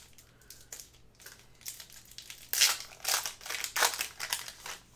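Crinkling of a trading-card pack's foil wrapper being opened and handled: a string of rustling crackles, faint at first and louder from about two and a half seconds in.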